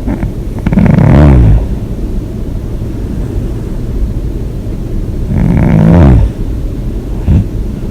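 Person snoring loud and hard with the mouth open: two long snores about four and a half seconds apart, each falling in pitch, then a short one near the end, over a steady low rumble.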